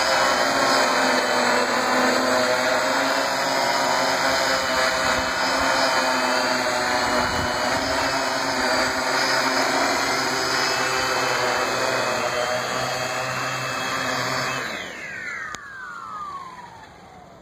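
Large multirotor drone hovering, its propellers and electric motors giving a steady, many-toned buzz. About fifteen seconds in, after it sets down, the motors spin down with a falling whine that fades out.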